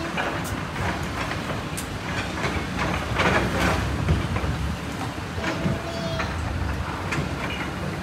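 Hydraulic excavators at work on a demolition: steady diesel engine rumble with irregular clanks, knocks and crashes of concrete and metal rubble being broken and moved, heaviest a little after three seconds in.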